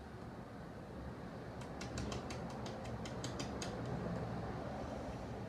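Slime being worked by hand, giving a quick run of small sharp clicks, about a dozen over two seconds, over a low steady hum.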